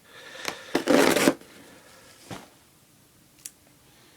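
Foam packing peanuts rustling and squeaking as hands push into them in the box, loudest about a second in, followed by a couple of light clicks.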